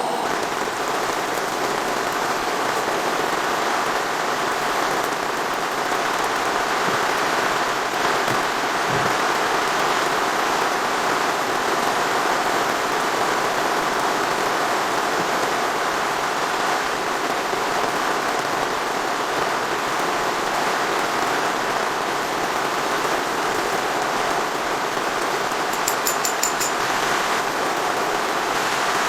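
Steady rain falling, an even hiss of drops with a few faint ticks near the end.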